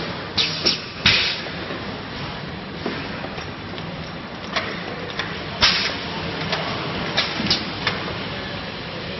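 Automatic multi-nozzle filling machine with pneumatic cylinders at work: a low steady hum under irregular sharp clacks and short hisses, the loudest about a second in and just before six seconds.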